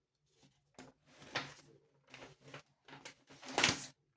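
A series of short sliding, scraping handling noises, the loudest about three and a half seconds in.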